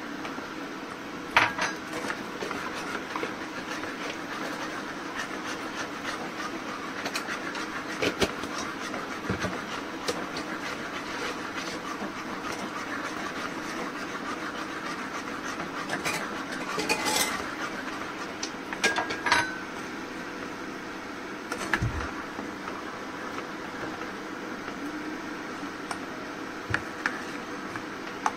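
Kitchen utensil sounds: scattered clinks and clanks of metal utensils against pots over a steady background hiss.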